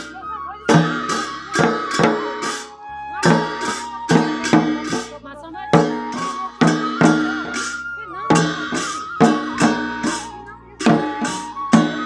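Large double-headed barrel drums beaten in an uneven rhythm of sharp strikes, roughly two a second, accompanying a line dance.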